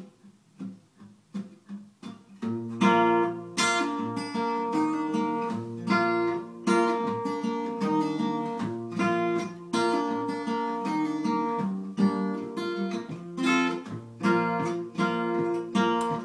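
Acoustic guitar playing a song's intro: a few soft taps and plucked notes, then from about two and a half seconds in, full chords played in a steady rhythm.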